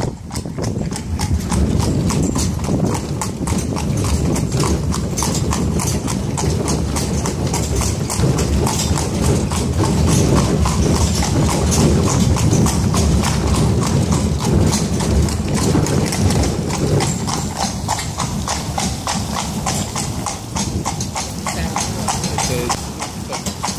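Horse's hooves clip-clopping steadily on a paved street as it pulls a carriage, over a steady low rumble of the carriage rolling along.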